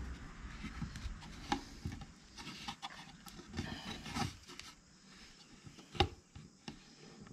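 Hands working a rubber seal onto a black plastic RV waste tank valve body: faint rubbing and handling noise with scattered small clicks and taps, the sharpest about six seconds in.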